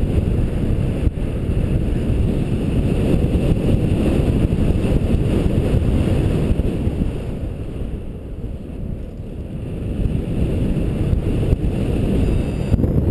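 Wind buffeting the microphone from the airflow of a gliding flight: a steady low rumble that eases off for a couple of seconds just past the middle.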